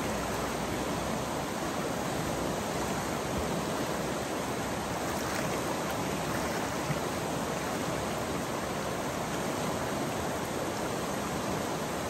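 South Santiam River rushing over a shallow rocky riffle: a steady, even rush of flowing water.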